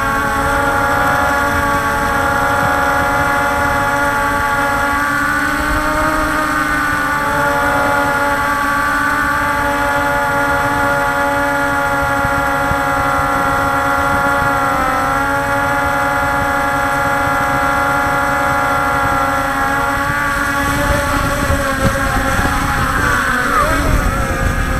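Multirotor drone's electric motors and propellers whining steadily, the pitch rising and dipping together every few seconds as it manoeuvres. Near the end it comes down onto grass, the whine turning unsteady over a rough low rustling noise.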